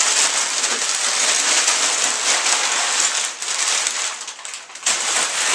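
Brown kraft packing paper crinkling and rustling as it is pulled out of a cardboard shipping box by the handful, easing briefly about four seconds in.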